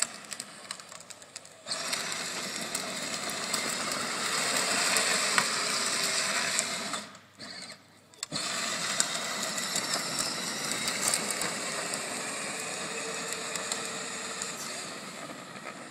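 Modified 24V Power Wheels Escalade's electric drive motors whining and its hard plastic wheels grinding on the asphalt as they spin in a burnout. It starts about two seconds in, cuts out for about a second near the middle, then runs on.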